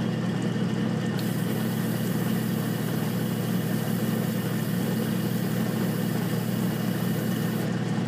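Electric fan running steadily: a loud, even whir over a low hum, venting spray fumes out of the room.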